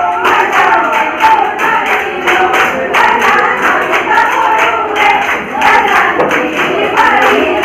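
Women singing a Jeng bihu song together, over a quick, steady beat.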